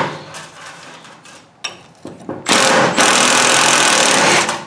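Milwaukee M12 Fuel stubby 3/8-inch cordless impact wrench hammering on a rusted bolt of a tractor PTO clutch, in two bursts: a short one ending just after the start and a longer one from about halfway to near the end, with a quieter stretch between.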